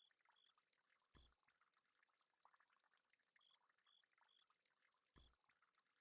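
Near silence, with only very faint scattered ticks and two faint low thumps, one about a second in and one near the end.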